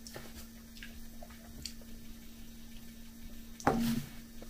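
Quiet eating and handling noises at a table: scattered faint clicks and small ticks, then one short louder knock about three and a half seconds in as a hand works at the mug with its spoon. A steady low hum runs underneath.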